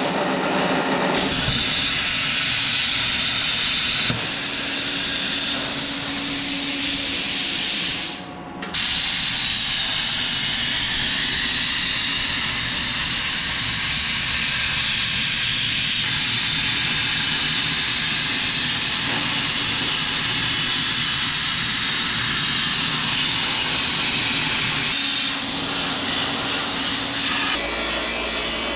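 CNC plasma cutter cutting aluminium plate: a steady, loud hiss of the torch's air and arc. It cuts out for about half a second some eight seconds in, then starts again.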